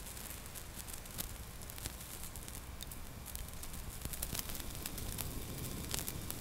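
Gas burner flame playing on a burning plywood panel coated with intumescent paints: a quiet, steady hiss and low rumble of the flame with scattered crackles and pops from the charring wood and coating.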